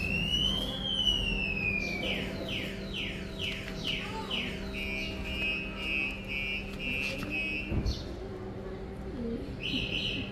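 Electronic alarm cycling through its siren tones: one rising-and-falling whoop, a run of about six falling chirps, then a rapid pulsed beeping that stops a few seconds later, with a short tone returning near the end.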